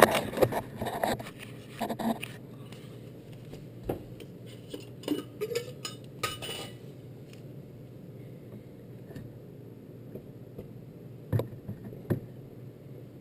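Glass mason jars being handled and swapped under the still's spout: scattered clinks and knocks, then two sharp knocks about a second apart near the end as a full jar is lifted out and an empty one set down on the wooden board. A faint steady hum runs underneath.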